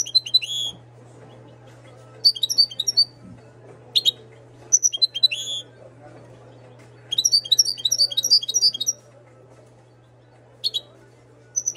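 A caged Moroccan goldfinch singing in short bursts of rapid, high twittering notes, six or so phrases with gaps between them, the longest running about two seconds past the middle. A steady low hum sits underneath.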